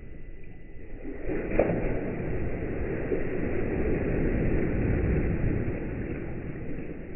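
A wave surging down a laboratory wave flume and breaking into whitewater: a rush of water that swells, is loudest about four to five seconds in, then dies away, with a brief sharp slap about a second and a half in.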